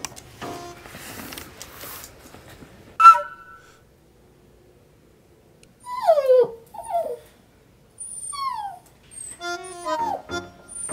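Toy poodle whining at a closed wardrobe door: a few short falling whimpers about six seconds in and again about eight seconds in. A single sharp hit near three seconds is the loudest sound, and background music plays at the start and again near the end.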